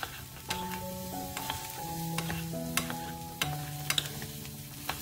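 Diced potatoes, onion and garlic sizzling in oil in a frying pan as wooden spatulas stir them, with several sharp clicks of the spatulas against the pan.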